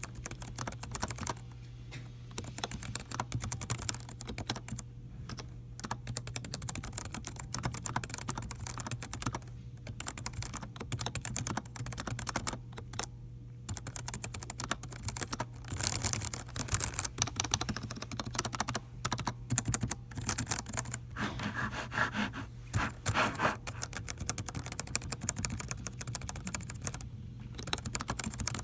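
Typing on a TG3 Electronics BLT rugged backlit keyboard with its 'raincoat' cover still on: dense, fast runs of key clicks broken by a few short pauses. A steady low hum runs underneath.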